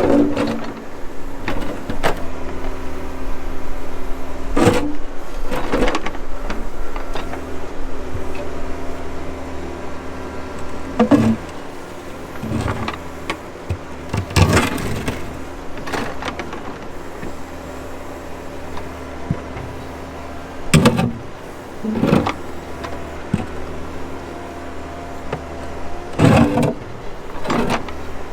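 Backhoe engine running steadily under hydraulic load, with about nine irregular knocks and scrapes as the bucket works against a large rock, trying to push it out of its hole.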